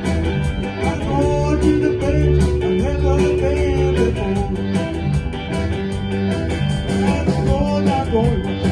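Live band playing at a soundcheck: electric guitar lines over bass and drums with a steady beat.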